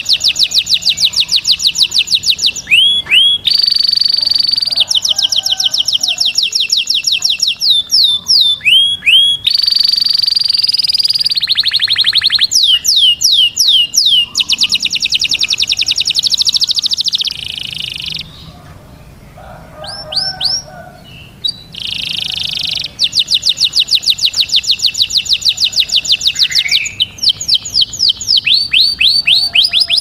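Male yellow domestic canary singing loudly: long rolling trills of fast repeated high notes, broken by runs of swooping notes. The song drops away to a few soft chirps for a few seconds past the middle, then the trills resume.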